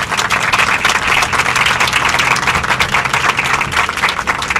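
Audience applauding: many people clapping at once.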